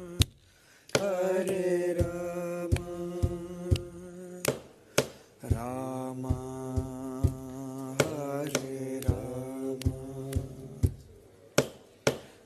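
A man singing a slow Kannada devotional song, drawing out long notes that bend in pitch, with sharp taps keeping time about twice a second. The singing pauses briefly between phrases.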